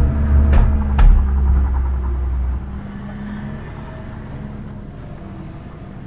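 Suzuki Swift Sport's K14C turbo four-cylinder with an HKS Hi-Power SPEC-L muffler, heard from inside the cabin, running with a loud low rumble and two sharp cracks about half a second and one second in. After about two and a half seconds it drops to a quieter low running.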